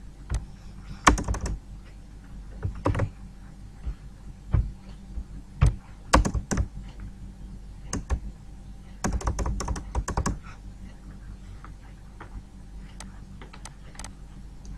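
Irregular clusters of sharp computer clicks and taps, several in quick succession then pauses, over a steady low electrical hum.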